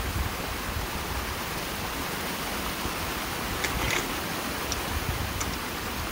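Ponded ditch water rushing steadily through a freshly unclogged culvert pipe as the blockage drains, with a few light clicks about four seconds in.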